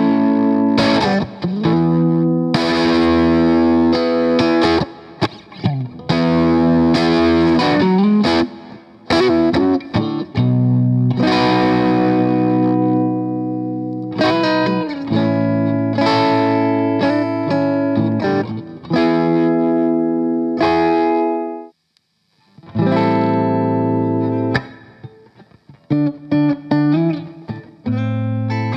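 Electric guitar played through a Boss Blues Driver BD-2 overdrive pedal: distorted chords strummed and left to ring, with some sliding notes and a short stop about three-quarters of the way through.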